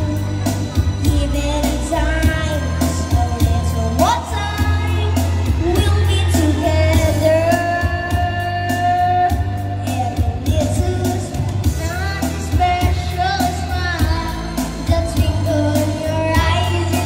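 A boy singing a pop song into a microphone, amplified through a PA system over backing music with a steady beat.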